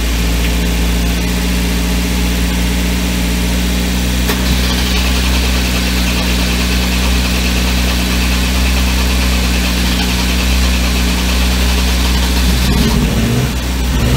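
Freshly started Volvo Penta inboard marine engine idling steadily with an even low hum. A higher hiss joins about four seconds in and stops shortly before the end.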